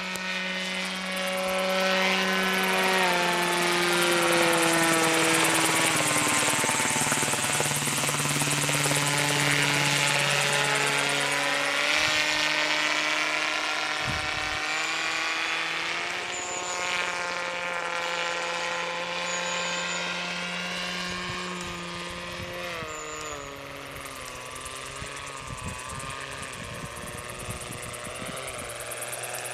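Self-built radio-controlled autogyro with a 3.2 m rotor flying: its propeller drive gives a steady drone whose pitch slides down and back up several times as it passes and changes throttle. It is loudest in the first half and grows fainter after about 23 seconds.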